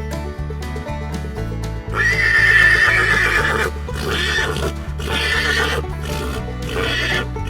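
A horse whinnying over background music: one long loud call about two seconds in, followed by three shorter, shuddering pulses.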